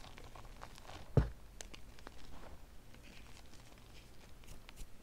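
Hands crushing and crumbling BSN gym chalk coated with soap, paint and cornstarch paste: soft, scattered crunches of powder and clumps, with one louder thump about a second in.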